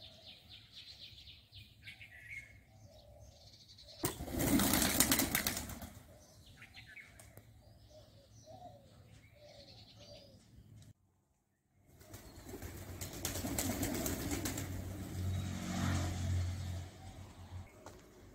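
Pigeons' wings flapping loudly as the flock takes off, a rush lasting about two seconds, starting about four seconds in. After a brief dropout comes a longer, louder stretch of rushing noise, and faint bird chirps sound in the quieter parts.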